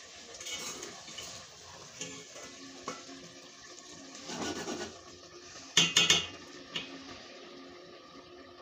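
Metal spoon stirring beaten eggs into a watery mix of vegetables in a metal pot, scraping and sloshing, with a cluster of sharp knocks of metal on metal about six seconds in.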